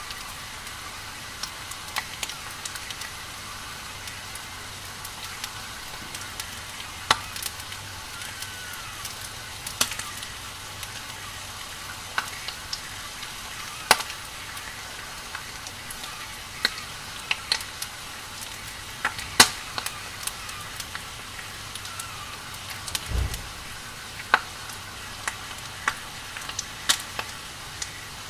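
Burning wood or charcoal fire crackling: a steady hiss broken by sharp pops at irregular moments, with one brief low thud about three quarters of the way through.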